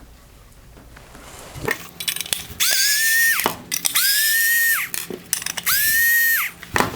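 Handheld power driver run three times in bursts of about a second, its motor whine rising as it spins up and falling as it stops, backing out screws during a headlight teardown. Sharp clicks of parts and screws come before and between the runs.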